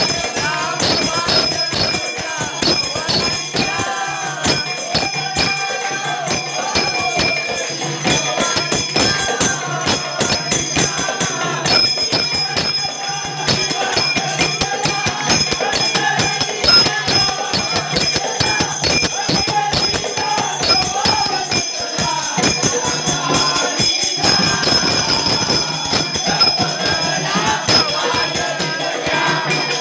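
Gondhal devotional song sung into a microphone and amplified, over fast, continuous drumming on a sambal, the paired drum beaten with two sticks.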